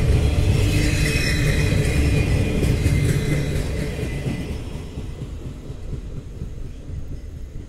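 Double-stack intermodal freight train's cars rolling past on the rails, a heavy low rumble with some high ringing tones that fades away about halfway through as the last cars go by.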